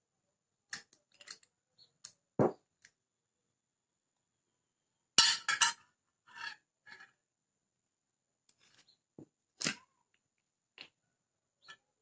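Glass bottles being set down and picked up on a tablecloth and a metal spoon clinking against a glass baking dish: scattered knocks and clinks, the loudest cluster about five seconds in.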